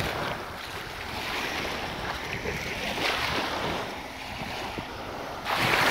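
Small waves breaking and washing up onto a gravelly shore, a steady wash that surges every few seconds and is loudest near the end.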